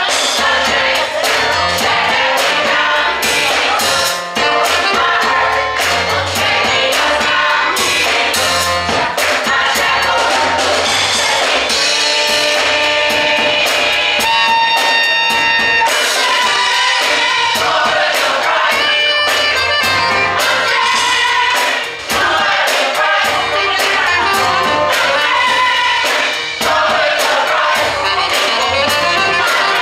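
Gospel choir singing in full voice, a live church choir performance with instrumental accompaniment and a steady beat.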